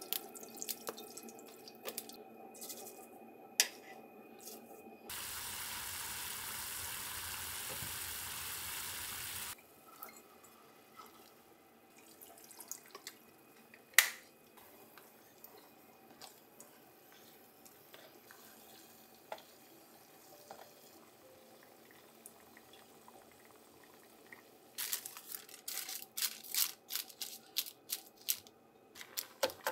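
Liquid seasonings poured into a stainless steel saucepan, with a steady rush of pouring for about four seconds that cuts off abruptly. One sharp knock follows. Near the end comes rapid crinkling of kitchen paper pressed down over simmering mackerel as a drop lid.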